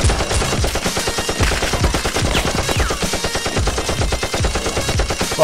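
Automatic-gunfire sound effect: a rapid, unbroken stream of shots at about ten a second.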